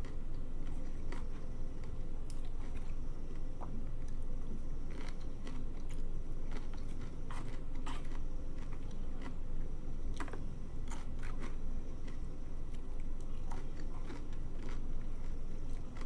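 A person eating close to the microphone: chewing and crunching, with many short scattered clicks of utensils, over a steady low hum.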